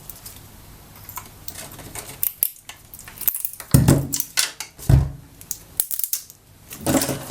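Battery pack parts and small tools being handled: irregular clicks, clinks and knocks of hard objects, with a few louder knocks about four, five and seven seconds in.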